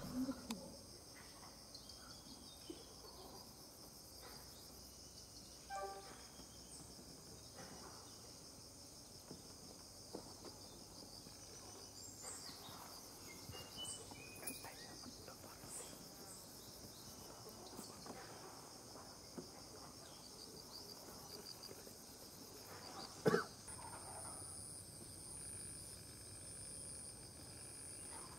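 Forest insects shrilling steadily in layered high-pitched trills, with a pulsing high trill joining in near the end. A single sharp knock late on is the loudest sound.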